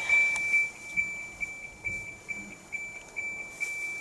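Electronic beeper sounding a fast, even run of high-pitched beeps, about four to five a second, over a steady high tone.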